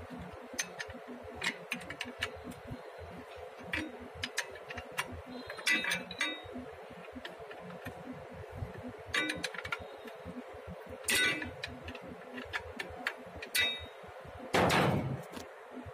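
A steel spanner clinks and ticks against a bolt on an alternator mounting bracket as the bolt is worked loose, in short scattered clusters of metallic clicks, some with a brief ring. Near the end there is one louder, heavier knock.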